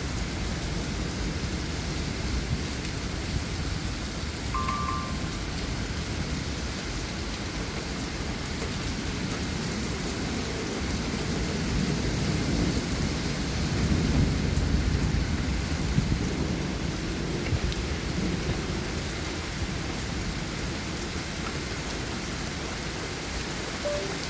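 Heavy, steady rain and wind of a severe thunderstorm (a derecho), with a low rumble swelling louder around the middle.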